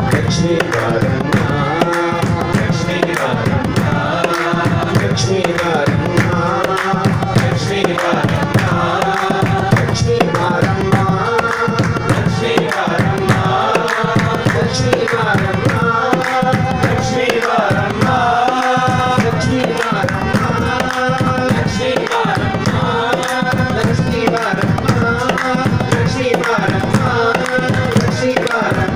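Devotional group singing (a bhajan) with harmonium, a hand drum keeping a steady beat, and hand clapping.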